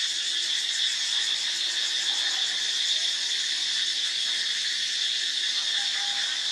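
Daytime insect chorus: a steady, high-pitched buzzing drone with no breaks, plus a couple of faint short chirps.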